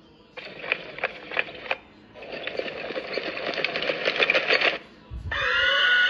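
Horse sound effects from a tablet's animal-sounds app, played through the tablet speaker: a few sharp clicks, then a few seconds of rapid clattering, and a horse whinny beginning near the end.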